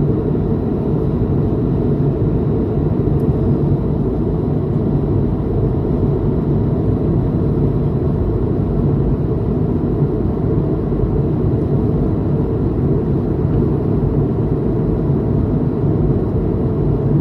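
Steady low rumble of a vehicle in motion, unchanging throughout.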